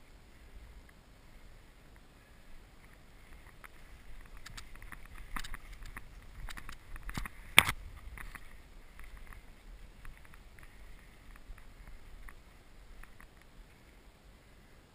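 Dry tall grass and reeds rustling and swishing against a person and their airsoft rifle as they push through, with scattered snaps and ticks, busiest in the middle. A single sharp snap about halfway through is the loudest sound.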